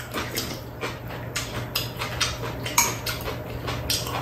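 Spoons and chopsticks clinking irregularly against ceramic bowls and a metal tray as two people eat cold soup, with slurping and chewing from the spoon, over a low steady hum.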